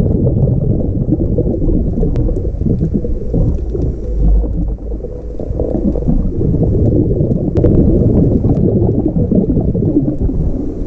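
Underwater recording: a loud, dense low rumble of bubbling, churning water, with a brief lull about four and a half seconds in.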